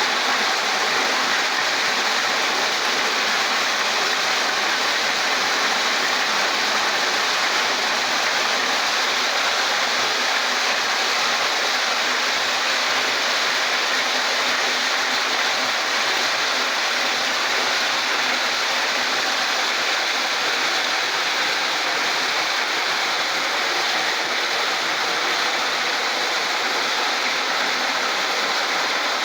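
Walnut washing machine running, with a steady rush of water spraying over the nuts.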